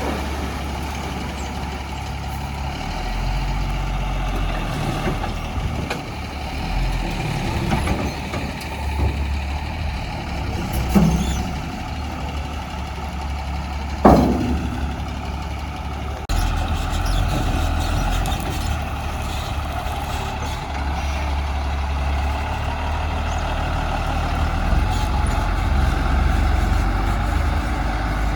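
Heavy diesel engines of a backhoe loader and tipper truck running steadily during loading. There are a few knocks about eleven seconds in and a single sharp bang about fourteen seconds in.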